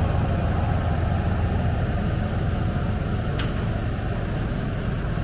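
Engine of directional-drilling equipment running steadily with a low rumble, with a faint single click about three and a half seconds in.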